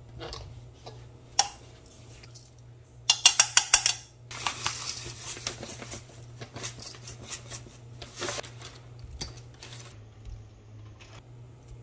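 Radish sticks handled in a stainless steel mixing bowl as chili powder and other seasonings go in: scattered clinks and knocks against the bowl, with a quick run of about six sharp taps around three seconds in and a soft rustle just after.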